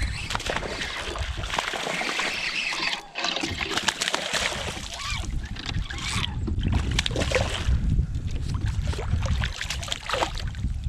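Water splashing and dripping with small knocks as a hooked redeye bass is fought up to the kayak and lifted from the water.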